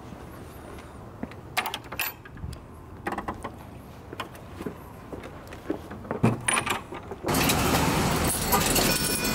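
Keys jangling in short bursts of light metallic jingles and clicks. About seven seconds in, the sound cuts abruptly to the loud, steady noise inside a moving city bus.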